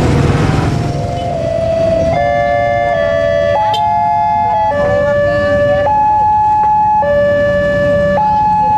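Wantech railway level-crossing warning alarm starting up about two seconds in, then sounding a two-tone alarm that alternates a higher and a lower steady tone, each about a second long. Motorbike and traffic engine noise comes before it.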